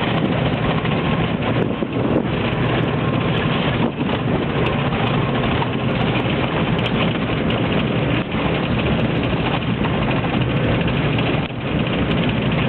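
Inside a city van driving over an unpaved, stony road: a steady din of engine, road noise and wind, broken by many sharp knocks and rattles as the van's worn-out suspension bangs over the stones.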